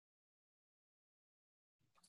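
Near silence: the audio is completely dead, with no room tone.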